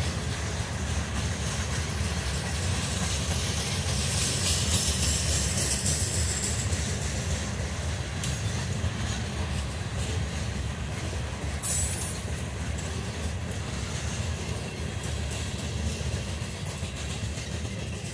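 Freight train's covered hopper cars rolling slowly past on jointed track, a steady low rumble of steel wheels on rail with a stretch of hissing wheel noise early on and a single sharp clank near the middle. The low rumble carries on after the last car has passed.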